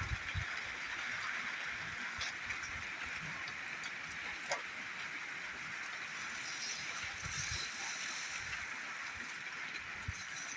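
Steady rain hiss with scattered drips ticking, and a few low thumps.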